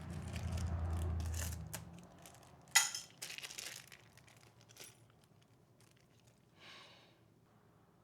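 Metal clinks and rattles of a 520 motorcycle roller chain and hand tools being handled, with one sharp metallic click about three seconds in. A low hum runs through the first two seconds.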